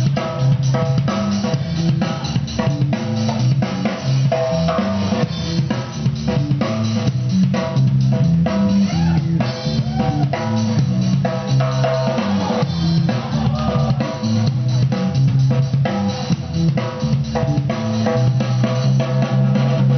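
Loud music with a driving drum-kit beat of kick and snare over a bass line that steps between notes: the DJ's beat for a dance battle routine.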